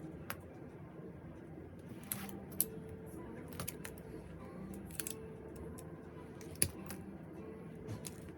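Scattered sharp clicks and light taps of hand work on an umbrella, about seven spread unevenly, the loudest about two-thirds of the way through, over a faint steady hum.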